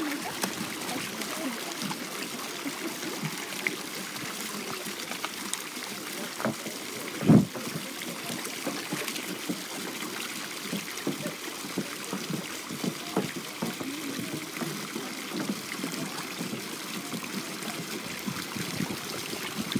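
A dense crowd of carp gaping and slurping at the water surface, a steady wet churning full of small irregular smacks, pops and splashes. There is one louder thump about seven seconds in.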